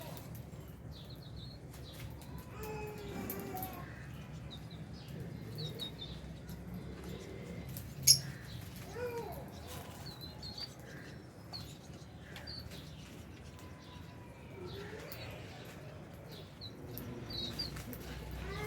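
A flock of lovebirds and budgies chirping in an aviary: scattered short high chirps and sliding calls, over a steady low hum. One sharp click stands out about eight seconds in.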